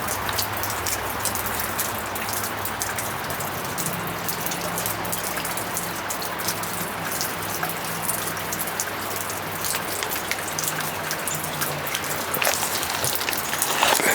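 Flood-swollen river rushing: a steady wash of moving water with constant small splashes.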